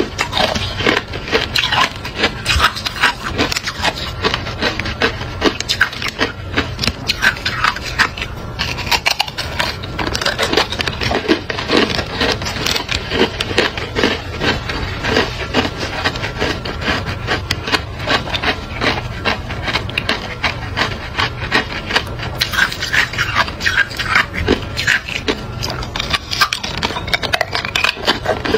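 Hard clear ice being chewed and crunched in the mouth: a dense, continuous crackle of small cracks and crunches with no pauses.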